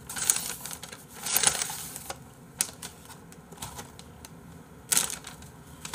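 Brown paper takeout bag crinkling and rustling in several short bursts as it is handled and emptied, the loudest about a second and a half in and again near the end.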